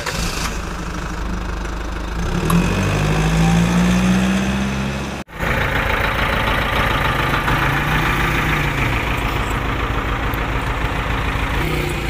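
An engine running throughout. It revs up over the first few seconds, cuts off sharply at an edit about five seconds in, then runs steadily with one brief rise and fall in pitch.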